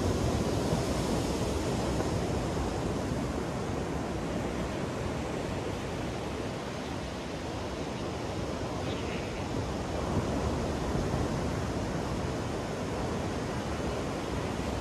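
Ocean surf breaking on a sandy beach: a steady wash of waves that eases a little midway and builds again near the end.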